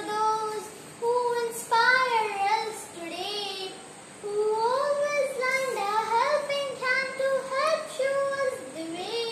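A young girl singing solo without accompaniment, in phrases of held, gliding notes with short pauses between lines.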